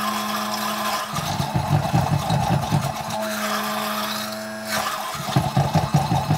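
Stick blender's motor running continuously in soap batter in a plastic jug, a steady hum that turns rougher and choppier twice as the blade head churns the batter toward trace.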